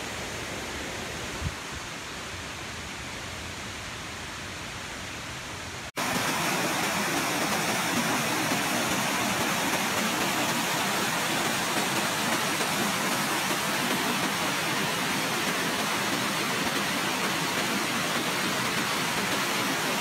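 Waterfall rushing: a fainter, steady rush of water at first, then after a cut about six seconds in, the louder, close rush of water pouring down into a rock pool, steady throughout.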